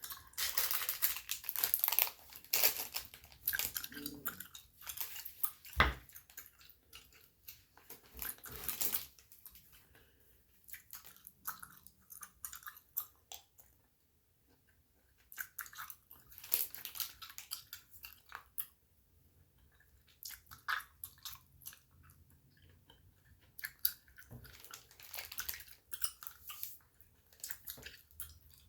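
Gum chewing close to the microphone: wet, clicky mouth sounds in spurts, with short pauses, and one sharp click about six seconds in.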